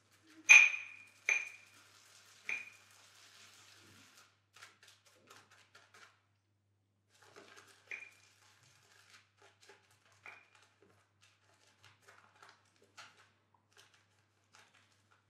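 Ringing clinks on a shaving bowl, three sharp ones in the first few seconds and two fainter ones later, with soft swishing and scraping of a wet shaving brush working shaving cream in the bowl.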